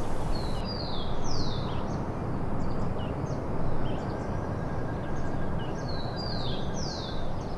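A songbird singing a short phrase of several high, down-slurred whistled notes, twice, with scattered short chirps between, over a steady low background rumble.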